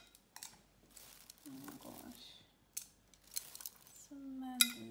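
Quiet, scattered clicks and light rustling of food being handled in a kitchen, with a short voice sound near the end.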